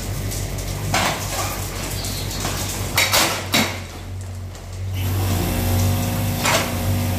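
Yanmar mini excavator's diesel engine running steadily while its bucket pulls down brick walls, with bricks and rubble crashing and clattering down several times: about a second in, around three seconds in, and near the end. The engine grows louder from about five seconds in as it works harder.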